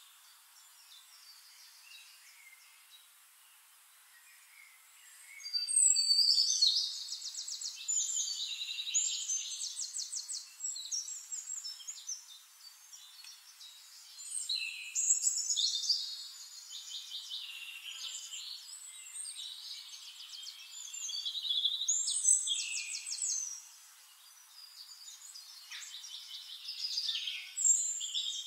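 Songbirds singing: high, rapid trilled phrases that come every few seconds, starting about five seconds in after a quiet stretch.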